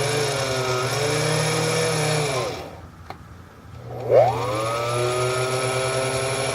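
Late-1940s Small Machines Inc. mini bench lathe running at full spindle speed, out of back gear, with a steady whine of several tones. About two and a half seconds in it winds down and stops, a click follows, and about four seconds in it spins up again with a rising whine and runs steadily.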